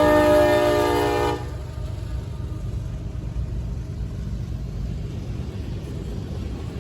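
Amtrak passenger train's horn sounding a multi-note chord as a salute, cutting off sharply about a second and a half in. A steady low rumble of the passing train follows.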